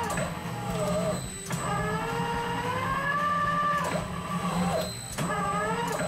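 Industrial twin-shaft shredder chewing through a stuffed plush toy: a steady motor hum under a pitched whine that wavers and drops out briefly a few times as the cutters strain on the stuffing.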